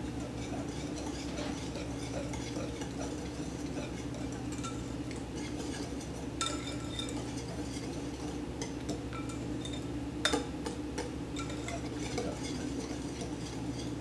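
Wire whisk beating wet cake batter in a glass mixing bowl: a continuous wet stirring with light ticks of the wires against the glass. Two sharper clinks come about six and ten seconds in.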